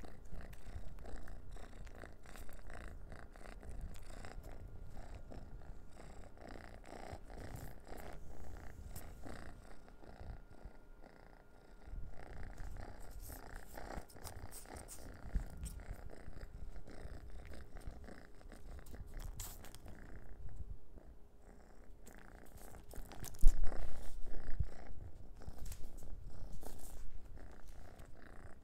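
Domestic cat purring steadily, close by, with scattered light taps. A louder thump comes about 23 seconds in, followed by a few seconds of louder noise.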